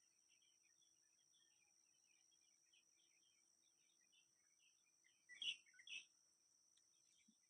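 Small birds chirping faintly and continuously, with two louder, short calls close together about five and a half seconds in.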